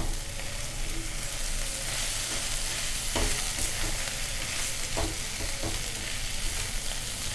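Spiced potato samosa stuffing sizzling softly in a hot pan as it is stirred: a steady hiss, with a few light scrapes or knocks of the spoon against the pan about three and five seconds in.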